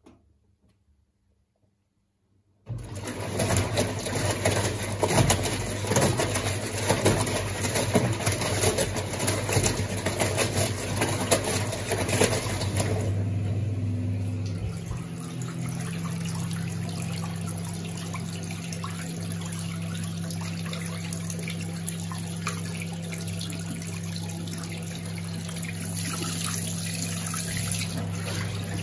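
Hajdú Energomat Komfort washing machine's drain pump starting about three seconds in and running with a steady hum as it pumps the water out, the water gushing and splashing from the drain hose into a sink. About halfway through, the splashing eases and the hum settles to a steadier, slightly different pitch.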